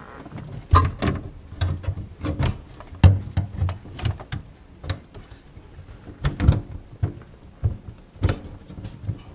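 Garbage disposal mounting ring being turned onto its sink mount: a string of irregular clicks, knocks and scrapes as the tabs are worked into place, with the loudest clunks about a second in, about three seconds in, and twice in the last three seconds.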